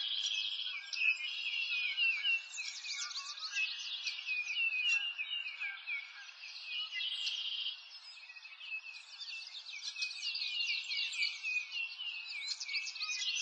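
Dense chorus of small birds, many quick chirps falling in pitch, overlapping continuously over a faint hiss.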